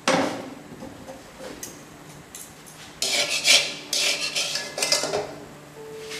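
Metal kitchenware clattering: a sharp clink right at the start, then a couple of seconds of clinking and scraping of utensils against a steel karahi on a gas stove.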